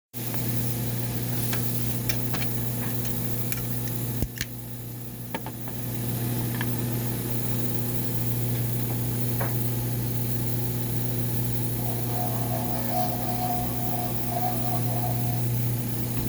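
A steady low machine hum, with a few short clicks in the first several seconds.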